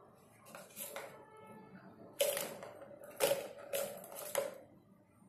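Plastic balls rattling and rolling in the tracks of a three-tier plastic cat track toy as a cat bats them, in several short bursts.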